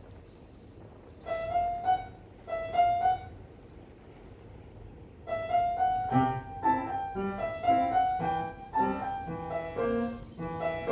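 Piano being practiced: two short repeated phrases, a pause, then from about five seconds in a fuller passage with lower bass notes under the melody.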